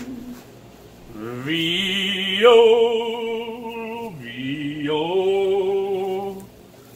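A man singing in long, drawn-out held notes with a wavering pitch and no clear words, in two phrases: the first starts about a second in and rises in pitch, and the second starts about four seconds in.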